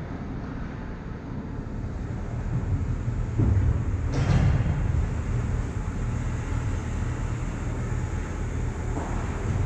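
Indoor ice rink ambience heard close to the goal net: a steady low rumble, with a brief scraping rush about four seconds in and a smaller one near the end.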